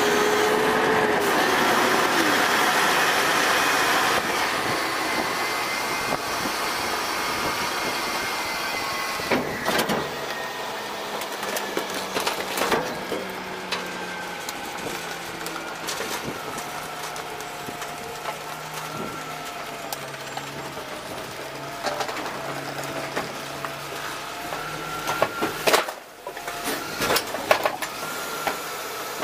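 DaDee Scorpion full-eject side-loader garbage truck running its hydraulics to cycle the packer panel through the hopper: a steady mechanical run with a slowly drifting whine, loudest for the first few seconds and then easing off, with occasional knocks. Near the end the side arm tips a cart and trash falls into the hopper with a cluster of knocks and clatter.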